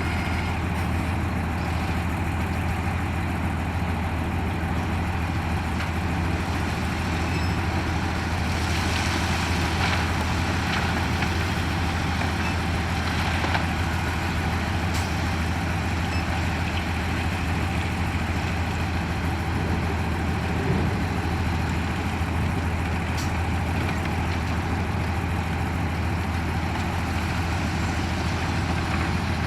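Heavy diesel engine of earthmoving machinery running steadily, a low even drone with no change in speed.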